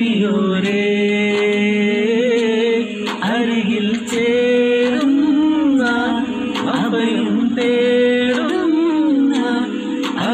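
A man singing a devotional song for the Prophet's birthday into a handheld karaoke microphone, in long held notes with wavering turns and slides, pausing briefly for breath a few times.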